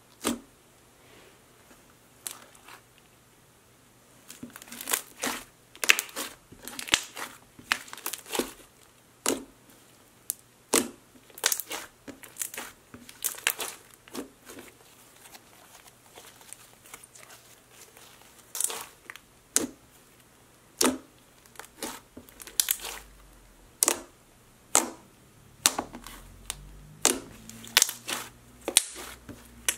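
Thick pink slime made of clear and white school glue with lotion, pressed, poked and squeezed by hand. It gives irregular short sticky clicks and crackles in runs, with quiet gaps between.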